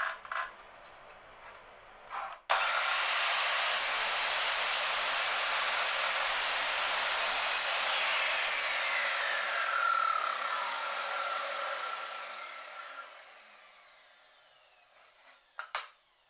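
Power miter saw starting abruptly about two seconds in and running steadily as it cuts a piece of wood to length, then the blade winding down with a falling whine that fades out. Sharp clicks near the end.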